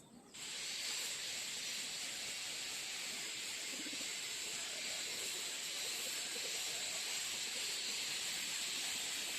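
A steady hiss that starts abruptly just under half a second in and holds evenly.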